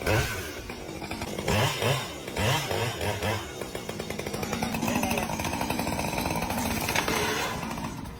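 A motor running with a rapid buzzing rattle, steadier and more even in the second half.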